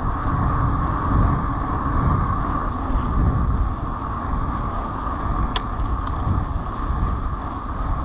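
Steady road noise of a car being driven: low rumble with an even tyre hum. A brief click sounds about five and a half seconds in.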